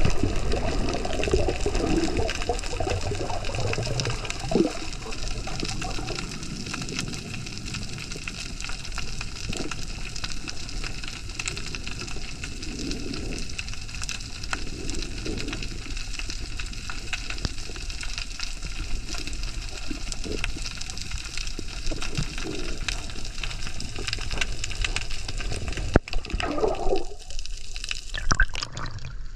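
Underwater ambience picked up by a submerged camera: a steady wash of water noise with faint clicks and low rumbles. Near the end the sound changes to sloshing and splashing as the camera rises to just below the surface.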